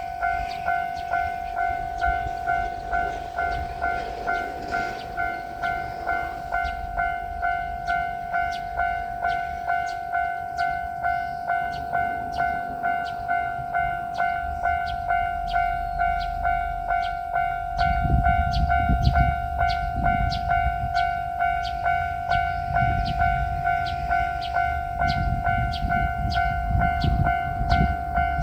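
A Japanese railway level-crossing alarm rings in its steady 'kan-kan' rhythm, a bit over one stroke a second. About two-thirds of the way in, the low rumble of an approaching diesel railcar comes in and grows louder.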